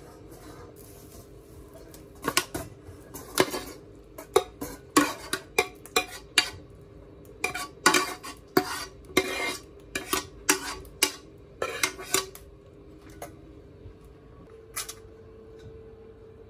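A metal frying pan and spatula clanking and scraping against a stainless steel colander as cooked vegetable-and-pork filling is tipped and scraped out, in an irregular run of sharp knocks that stops about three-quarters of the way through, with one more near the end. A faint steady hum runs underneath.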